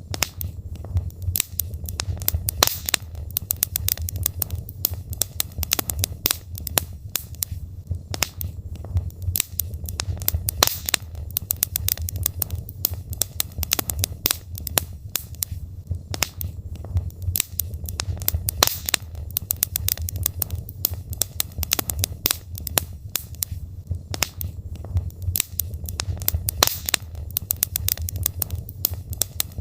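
Wood logs burning in a fireplace: frequent irregular crackles and pops over a low, steady rumble of the fire.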